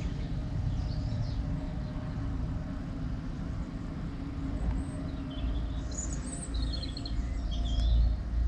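Steady low outdoor rumble with a few faint bird chirps, about a second in and again a little past the middle.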